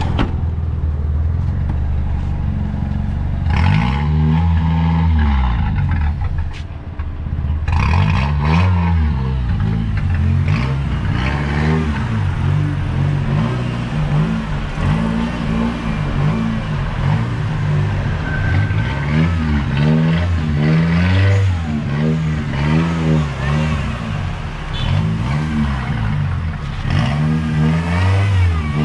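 Toyota Starlet's four-cylinder engine being revved over and over, its pitch climbing and dropping in quick blips every second or two.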